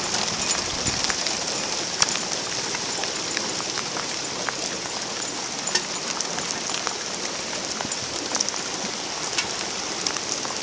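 Hail pelting down steadily: a dense hiss of falling stones with many sharp individual ticks of hailstones striking.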